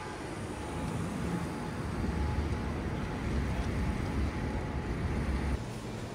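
City street ambience: a steady rumble of traffic and general street noise. Near the end it cuts abruptly to a quieter low hum.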